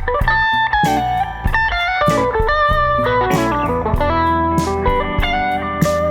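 Electric guitar playing a melodic lead line of quick, changing single notes through a Bad Cat Classic Pro 20 Reverb, a 6V6-powered valve combo amp, over sustained low bass notes.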